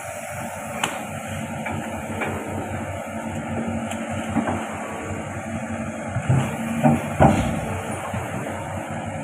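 Hitachi Zaxis 110 excavator running steadily, with several sharp knocks as it works; the loudest knock comes about seven seconds in.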